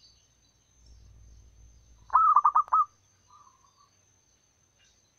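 Zebra dove (perkutut) cooing: a quick run of about five short, loud notes, each rising then falling, about two seconds in, followed by a fainter softer note.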